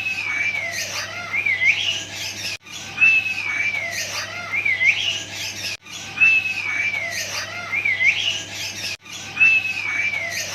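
Grey parrot whistling the same phrase over and over, about every three seconds. Each phrase is a long gliding whistle that falls slightly, then ends in a couple of quick up-and-down twists.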